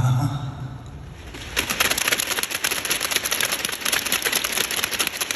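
The song's final low note dies away, then a concert audience breaks into steady applause about a second and a half in.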